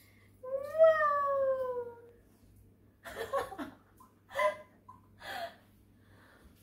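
A long, high vocal call that rises and then falls in pitch, lasting about a second and a half, followed a second later by a few short breathy bursts.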